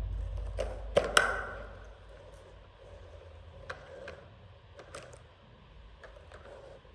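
A low rumble fades out over the first two seconds, then light clicks and taps come every second or so.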